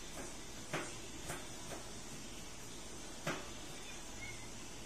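A few light clicks and taps of a metal spoon against a foil-lined pan as sticky syrup is spooned over the rice cake.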